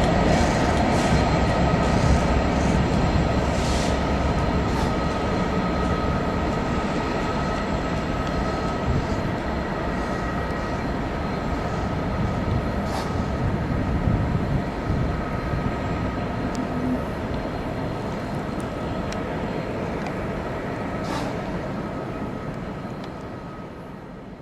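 EWS diesel locomotive running while shunting, a steady rumble with a thin whine over it that slowly grows fainter as it moves away. A few short sharp clicks or squeaks come through now and then.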